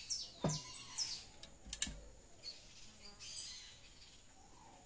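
Birds chirping: several short, high chirps that fall in pitch, coming in the first second and again past three seconds. A couple of sharp clicks come about two seconds in.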